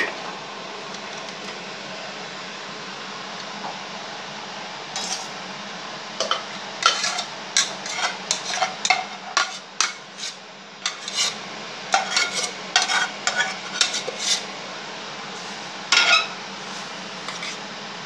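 A metal spoon scraping and clinking against a stainless-steel tray and an aluminium pot as cooked biryani is turned out and mixed. It starts about five seconds in as a run of irregular scrapes and knocks that go on for around ten seconds, with one more clatter near the end.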